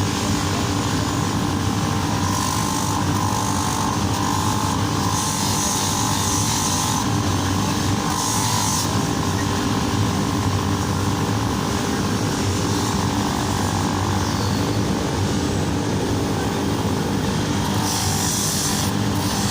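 Steady, unbroken machine drone: a motor running at constant speed with a low hum under a hiss.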